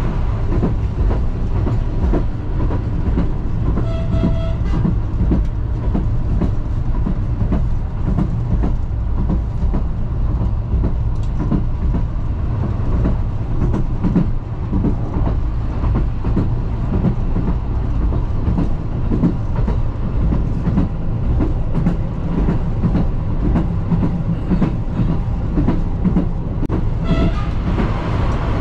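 Diesel railcar running along the line, heard from the driver's cab: a steady engine and running drone with the wheels clattering over the track. Two short horn blasts sound, one about four seconds in and one near the end.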